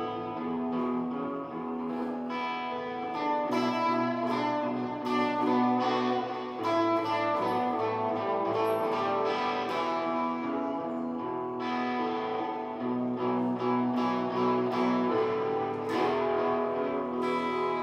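Electric guitar playing a blues line over a backing of held chords and low bass notes that change every few seconds.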